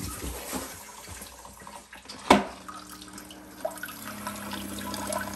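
Bidet King Alpha UX Pearl electric bidet seat running its own cycle just after it is first switched on, with water splashing into the toilet bowl. A sharp click a little over two seconds in, then a steady low hum from the seat.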